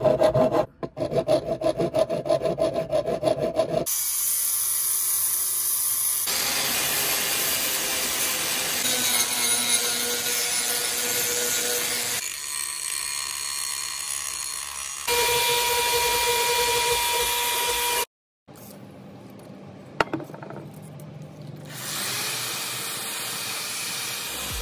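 A hand file rasps over a cast metal key in quick strokes, about four a second, for the first few seconds. After that, power tools grind and sand the key in turn: an angle grinder, and near the end an electric drill with a sanding pad.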